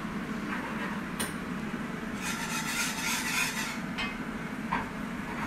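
A utensil stirring and scraping in a pot on the hob, with a rustling scrape in the middle and a few light knocks against the pot, over a steady low hum.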